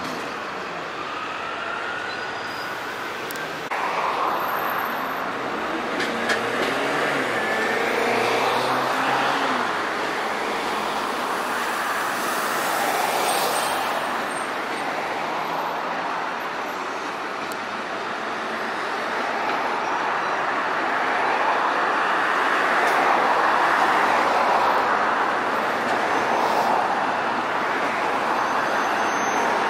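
Street traffic noise beside a tram line, with a tram running on the rails and pulling away early on; the noise grows louder in the second half as another tram draws nearer.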